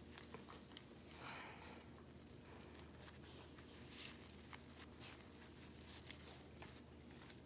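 Near silence: faint rustling and small clicks of a paper tissue being handled and wound around a dog's nose, with a brief soft hiss about a second in.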